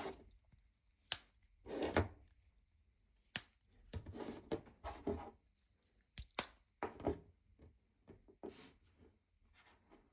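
Slipjoint pocket knives being handled: short rustles of handling with several sharp clicks, the loudest a pair about six seconds in.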